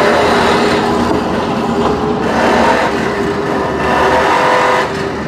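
Dodge pickup truck driving slowly, heard from inside the cab: engine and road noise, steady and loud, easing off slightly near the end.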